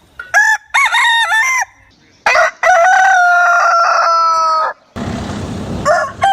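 Rooster first clucking in short calls, then crowing one long cock-a-doodle-doo that slowly falls in pitch. About a second after the crow, a short burst of hissing noise.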